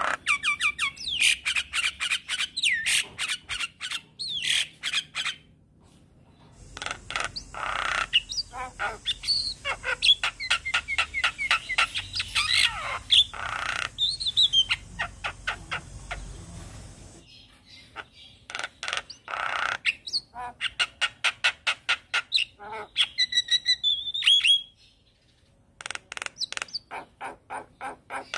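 Javan myna singing vigorously: long runs of rapid, harsh chattering notes mixed with squawks and whistled glides, broken by a few short pauses, the longest about a second near the end.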